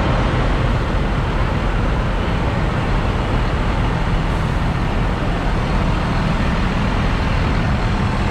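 Claas Arion 660's 6.8-litre six-cylinder diesel engine idling steadily, close up.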